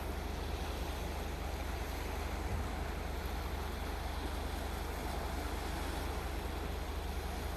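Steady seashore noise: waves washing, with a deep wind rumble on the microphone.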